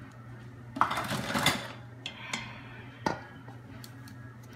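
A plastic slotted spoon scraping and knocking in the stainless steel inner pot of an Instant Pot as turkey necks are worked in melted butter. There is a rough scraping stretch about a second in, then a few sharp knocks, over a steady low hum.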